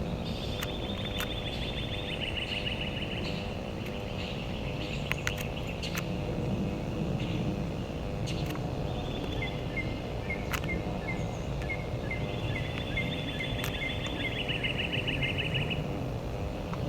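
Outdoor ambience: high, trilling calls near the start and again near the end, and a run of short repeated chirps in the middle, over a steady low rumble.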